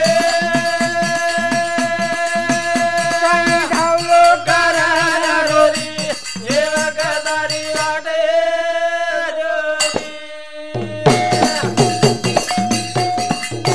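Lambada (Banjara) folk narrative song: long held melodic notes over a steady percussion beat. The beat drops out for about three seconds, leaving the held, wavering melody alone, then comes back.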